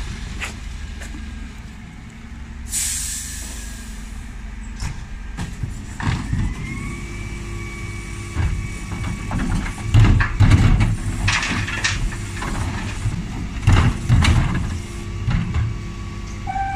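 Dennis Elite 6 refuse truck's diesel engine running, with a sharp air-brake hiss about three seconds in. From about six seconds comes the steady whine of its Terberg TA-DE hydraulic bin lift raising wheelie bins, with loud bangs as the bins are tipped and knocked empty at the top.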